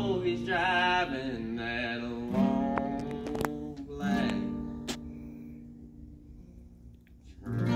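Acoustic guitar strummed while a young man sings. The last chord rings out and fades almost to silence about seven seconds in, and the sound picks up again right at the end.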